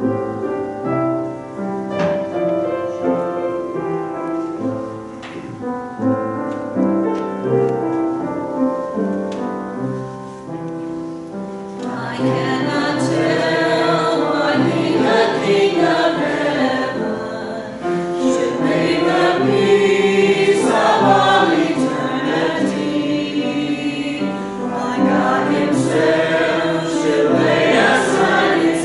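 An instrumental introduction of held chords, then about twelve seconds in a small church choir of mixed men's and women's voices comes in singing a hymn.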